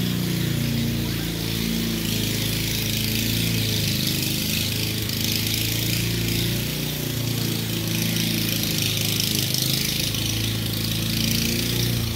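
Small petrol engine of yard-cutting equipment running steadily at a constant speed.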